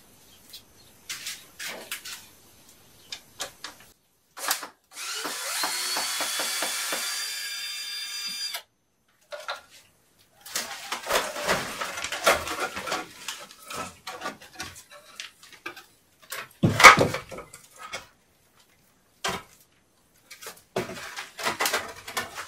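A power drill runs for about four seconds, rising in pitch as it spins up, while wooden formwork is being taken down from under a concrete lintel. Around it come knocks, scraping and clatter of the boards coming loose, with one loud thud about seventeen seconds in.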